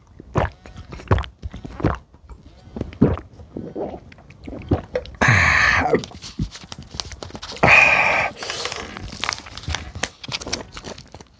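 A man gulping down a drink, then two loud, breathy wordless cries about five and eight seconds in, reacting to the burn of very spicy ramen.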